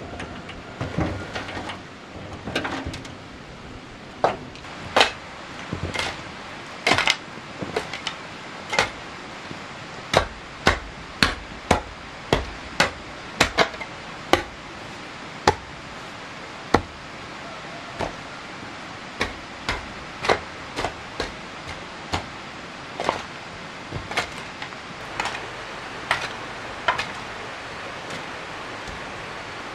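Hammering: dozens of sharp, irregular blows, the loudest through the first half and lighter ones later, over a steady background hiss.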